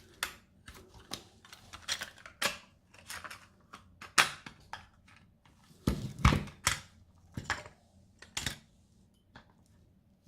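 Irregular clicks and knocks from a multimeter and its test probes being handled and pushed into place, with a louder cluster of knocks about six seconds in.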